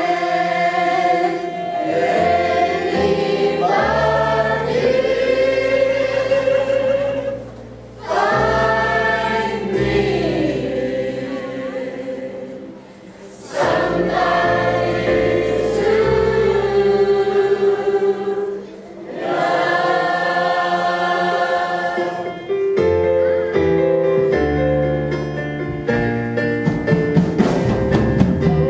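A choir sings a gospel-style song over instrumental accompaniment, in phrases with short breaks between them.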